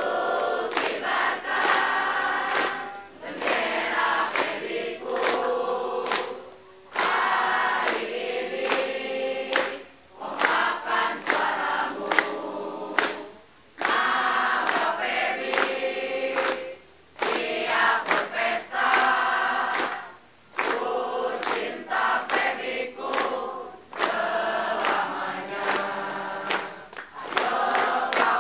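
A group of university students singing a yel-yel, an Indonesian group cheer song, in short phrases with brief breaks, with hands clapping along.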